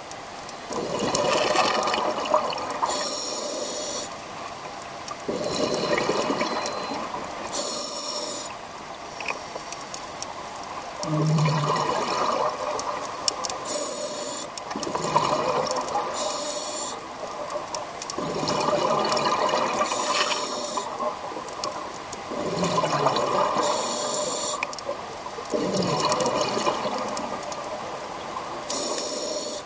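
Scuba diver breathing underwater through a regulator: bursts of exhaled bubbles about every four seconds, with short hisses between them.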